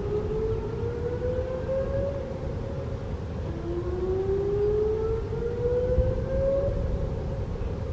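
Distant Whelen WPS-2910 electronic dam-failure siren sounding its whoop signal: a rising tone climbs for about three seconds, cuts off, and starts again. One whoop ends about two seconds in and a full one follows, over a steady rumble of wind on the microphone.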